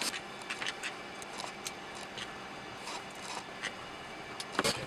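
Scattered small clicks and taps of plastic speaker parts being handled and fitted together, with a sharper click near the end.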